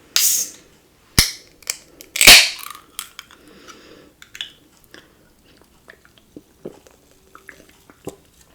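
A carbonated juice drink being opened. There is a hiss of escaping gas, then a sharp click, then a louder pop and hiss about two seconds in. Small clicks and handling noises follow.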